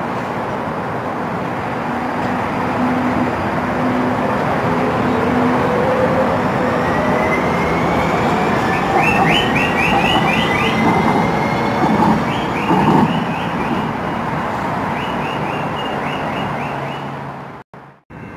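San Diego Trolley SD100 light-rail train passing through a station at speed: a rumble of steel wheels on rail that builds to its loudest about halfway and then fades. A rising whine and a string of short, high squeaks come through as it goes by.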